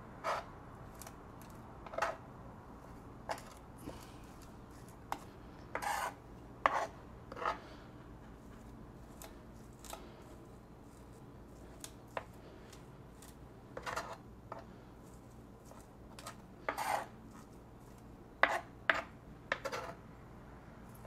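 Kitchen knife chopping and scraping lime zest and garlic paste on a plastic cutting board. The blade knocks on the board at irregular intervals, singly or two or three at a time, with short scraping strokes between.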